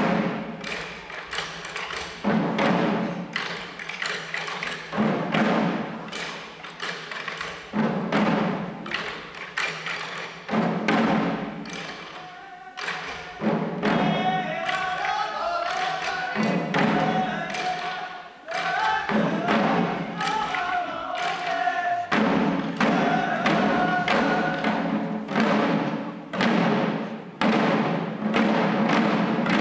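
Shishi odori deer dancers beating the drums slung at their waists in a steady, driving rhythm. A high, wavering sung melody rides over the drumming for several seconds in the middle.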